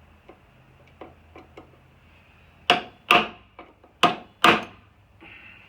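Four sharp hammer blows on steel, in two quick pairs, each with a short metallic ring, after a few light taps. They are blows on a seized woodruff key, being driven with a pointed drift punch.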